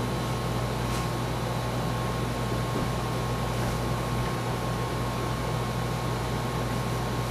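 Steady background hum and hiss like a fan or air conditioner, with a low electrical hum and a faint steady high tone.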